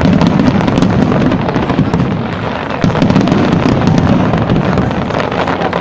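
Fireworks going off in a dense, continuous crackle of rapid pops over a low rumble of bangs. It eases briefly about halfway through, then swells again.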